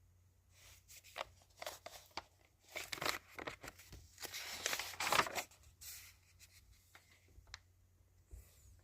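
Rustling and crinkling with scattered irregular clicks, densest and loudest a little past the middle, then thinning out to a few isolated clicks.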